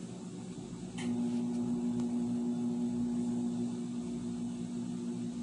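Steady low electrical hum of a household appliance. About a second in, a click and a louder low hum start and hold steady, as a motor switches on.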